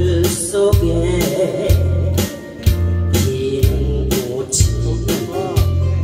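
Woman singing a Korean trot song through a microphone, her voice wavering with vibrato, over an accompaniment with acoustic guitar, a steady beat and a strong repeating bass line.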